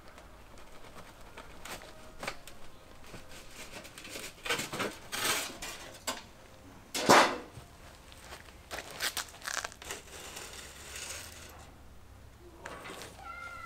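Scrap sheet-metal formwork being pried and pulled away from a hardened concrete pad: irregular metallic scrapes and rattles, the loudest a sharp scrape about seven seconds in.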